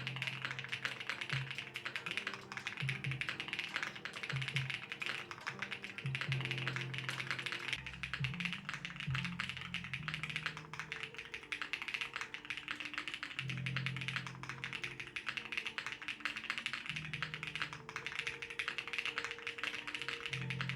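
Qwertykeys QK80 custom mechanical keyboard being typed on steadily, a fast, unbroken run of key clicks, over background music with sustained low notes.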